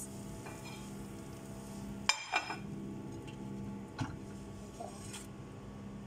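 Microwave oven running with a steady hum, a short beep about two seconds in, and a few light clicks after it.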